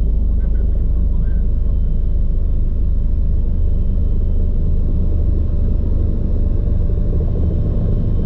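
Bell 429 twin-turboshaft helicopter running steadily: a heavy, even low rumble with a faint steady whine above it.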